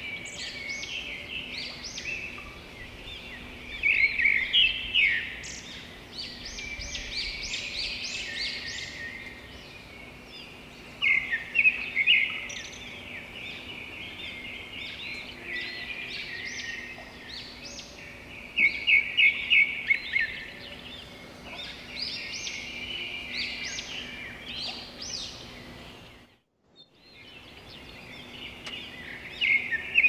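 Songbird singing: short phrases of quick, high, squeaky notes, repeated every few seconds. The sound cuts out for about a second near the end, then the singing resumes.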